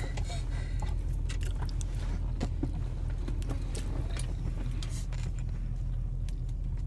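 Steady low rumble of a car's cabin, with scattered light clicks and taps of a fork and plastic food container being handled while eating.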